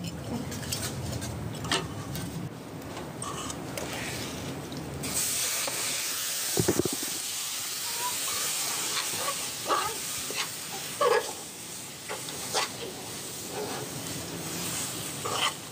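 Sesame seeds being roasted and stirred in a steel kadhai: a steady sizzling hiss, louder from about five seconds in, with a steel spoon scraping and clinking against the pan several times.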